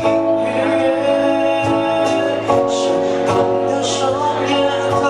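A small band playing a song live: electric guitar chords over a steady cajón beat, with a singer's voice on the microphone.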